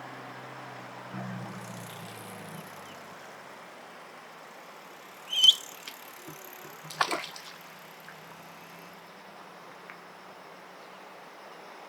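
Eastern spot-billed duckling giving one sudden sharp high peep about halfway through, followed about a second and a half later by a brief burst of wing-flapping and splashing as it jumps into the water. A steady low hum runs underneath.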